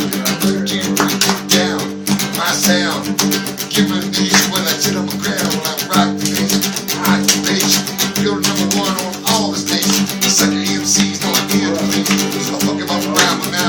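Music: a guitar-led beat with a steady rhythm.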